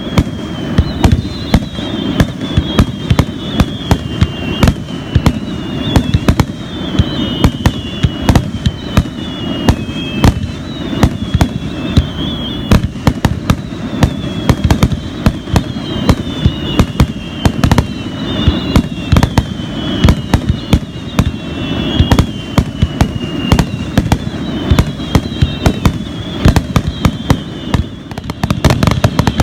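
Fireworks display in a dense barrage: many sharp bangs and booms in quick succession, overlaid by a string of whistling shells whose pitch falls, one after another about every second.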